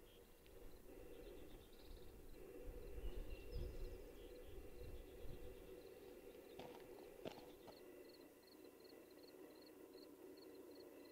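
Quiet outdoor ambience of faint chirping animals, with a small high chirp repeating about twice a second in the latter half. A few low rumbles come through in the first half, and a couple of sharp clicks fall around the middle.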